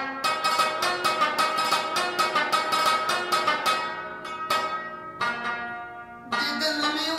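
Afghan rubab played solo: a quick run of plucked notes, about five a second, with the sympathetic strings ringing on. The playing drops quieter about five seconds in and comes back louder near the end.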